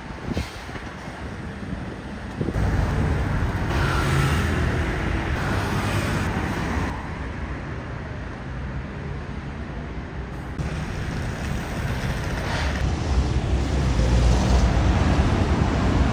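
Street traffic: car and bus engines and tyres running past close by, with a low engine rumble that swells twice and is loudest near the end.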